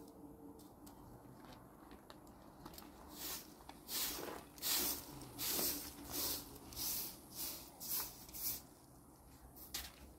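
Short straw hand broom sweeping dusty ground: a run of about ten swishing strokes, one or two a second, starting about three seconds in and stopping shortly before the end.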